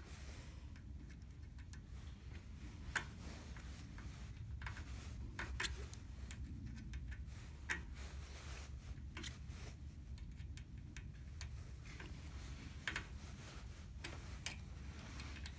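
Allen key turning the screw of a frame-lock strap adapter, giving scattered, irregular light metal clicks, over a low steady hum.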